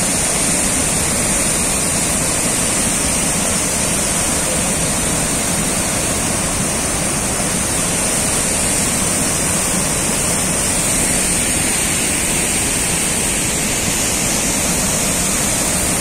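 Waterfall in flood, muddy water pouring over a broad rock ledge: a loud, steady rushing of water.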